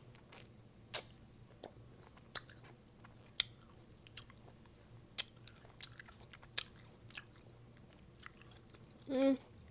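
A person biting and chewing a pickle close to the microphone: scattered sharp wet crunches and mouth smacks at irregular intervals. A short voiced sound comes near the end.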